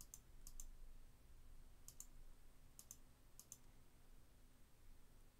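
Faint computer mouse clicks, five in all, each a quick double tick, at irregular intervals during the first few seconds, against near silence.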